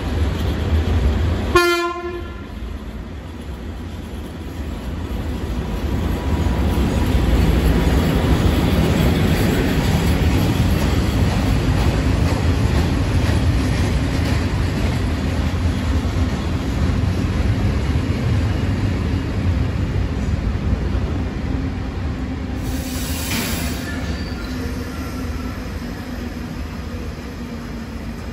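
Freight train of tank wagons passing through a station. The locomotive gives one short horn blast near the start, then the wagons rumble past steadily, with a brief high-pitched screech near the end.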